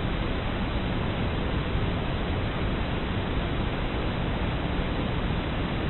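Steady, loud rushing noise with no distinct events or tones, heaviest in the low range.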